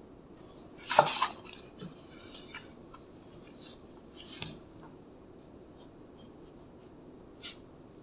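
Drawing paper rustling and sliding on the desk about a second in, followed by a series of short scratching strokes of a mechanical pencil sketching on paper.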